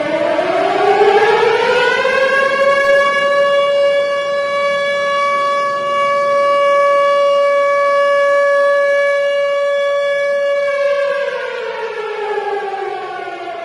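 Civil defense siren wailing: its pitch rises over the first two seconds, holds steady for about nine seconds, then falls away near the end.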